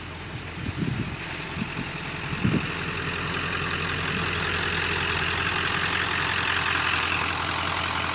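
Engine of a 1997 Ford F450 rescue truck idling steadily, growing louder about three seconds in. A few low gusts of wind on the microphone come in the first three seconds.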